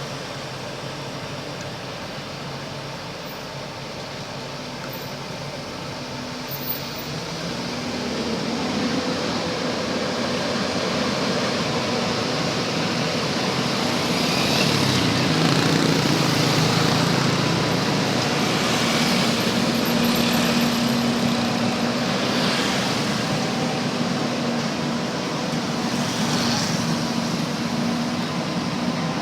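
Backhoe's diesel engine running under varying load, growing louder about eight seconds in and working hardest around the middle, then settling into a steady hum, with a few short swishing sounds in the second half.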